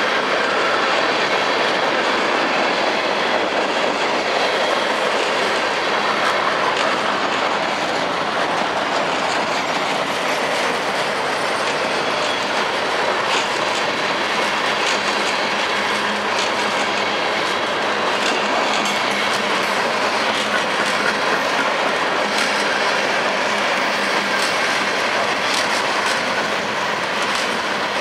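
Freight train cars rolling past: a steady rush of steel wheels on rail, with sharp wheel clicks over the rail joints that grow more frequent in the second half.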